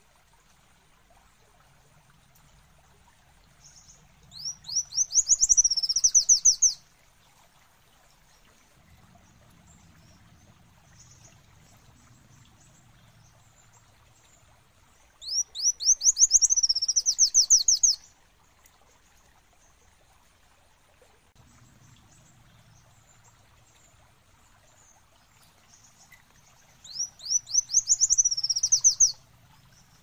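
Sunbird of the kind called kolibri wulung in Indonesia, singing three short bursts about ten seconds apart. Each burst is a fast run of thin, high, up-sweeping notes lasting two to three seconds.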